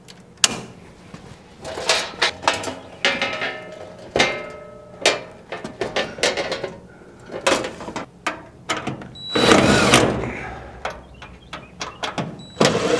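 Steel cover of an electrical breaker sub-panel being handled and fitted: a click as a breaker is switched off, then repeated metallic clanks and rattles as the cover goes on. Near the end a cordless driver runs briefly twice, driving the cover screws.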